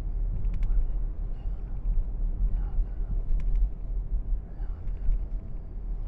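Steady low rumble of a car's engine and tyres heard from inside the cabin while driving, with a few faint ticks.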